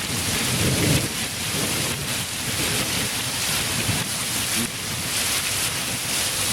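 Heavy downpour of rain mixed with hail, a dense steady hiss.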